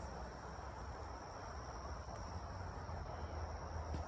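Outdoor ambience of insects giving one steady, unbroken high-pitched trill, over a low rumble.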